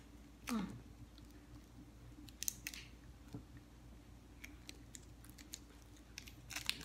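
Faint, scattered crackles of a plastic candy wrapper being opened and handled, with a brief falling vocal sound about half a second in. Near the end a cluster of crisp clicks fits a bite into a crunchy milk-chocolate pistachio stick.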